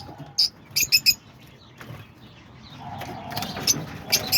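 Young lovebirds chirping: short, sharp high chirps in quick runs, a few in the first second and more near the end.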